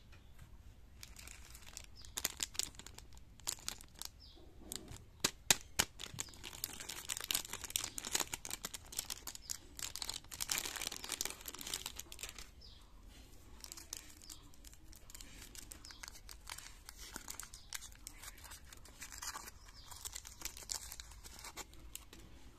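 Foil-lined candy wrapper being torn open and peeled off a candy lolly on a stick: a few sharp crackles, then several seconds of dense crinkling about midway, tailing off into lighter rustles.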